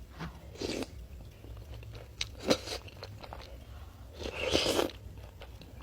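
Close-miked eating sounds: a person biting and chewing a mouthful of seblak, in a few separate wet, crunchy bursts, the longest and loudest about four and a half seconds in.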